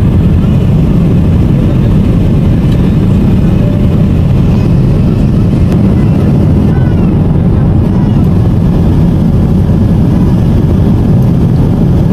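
Steady low cabin noise of a Boeing 777 airliner: its engines and the rush of air heard from inside the passenger cabin, unchanging throughout.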